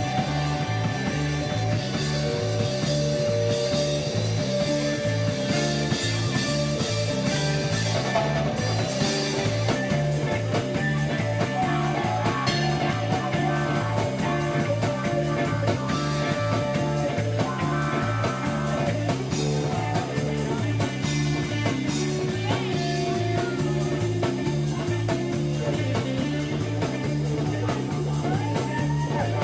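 Rock band jamming live, instrumental: guitar over a steadily repeating bass line and drums.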